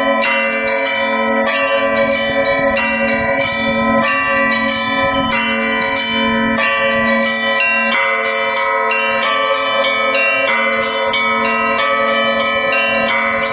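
A festive peal of Russian Orthodox church bells: the small bells struck in a quick, even pattern, about two strokes a second, over the steady hum of a larger bell.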